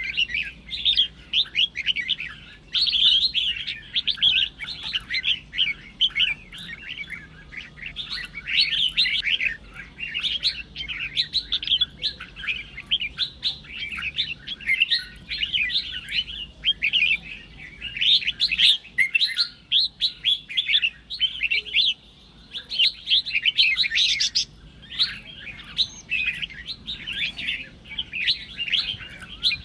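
Red-whiskered bulbuls singing competition song: quick runs of bright, chattering chirps, phrase after phrase with only short pauses between them.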